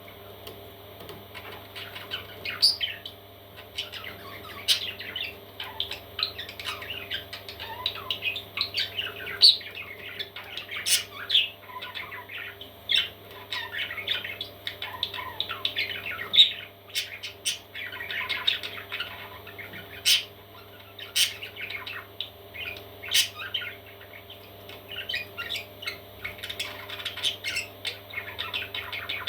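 Parrot chicks chirping and squawking in dense, short, rapid calls, with sharp clicks here and there over a steady low hum.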